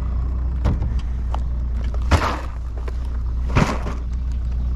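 Boat motor idling with a steady low hum, with three short knocks on the boat, the second and third the loudest.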